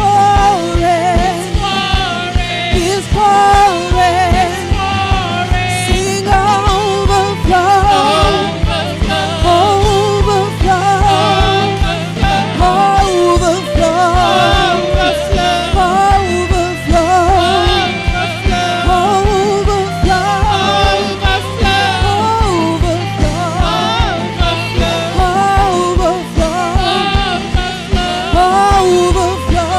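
Live church worship music: several singers with wavering, vibrato-laden voices over a drum kit and band, keeping a steady beat.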